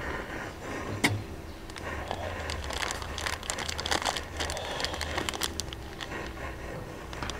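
Optimus 123R Svea brass liquid-fuel stove burning with a steady low rumble, with a sharp metal clank about a second in as a pot is set on it and light ticks after. The tank is overfilled with fuel, so its pressure won't build.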